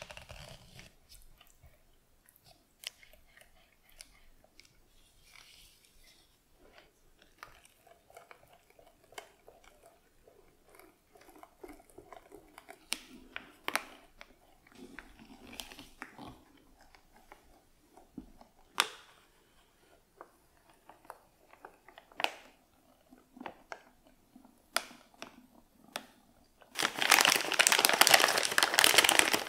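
Silicone spatula folding and scraping a thick, creamy mousse mixture in a plastic bowl: soft squelching with scattered light taps and clicks. Near the end a plastic piping bag crinkles loudly as it is opened out over a jug.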